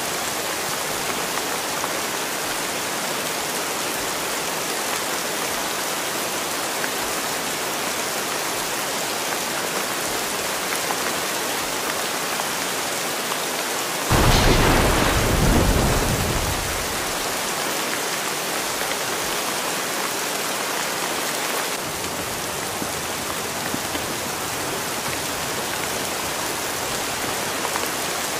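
Steady rain, with one roll of thunder about halfway through that comes in suddenly, heavy in the low end, and fades over two to three seconds.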